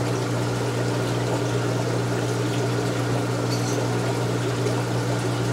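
Aquarium pump and filter running: a steady electrical hum under an even wash of trickling, running water.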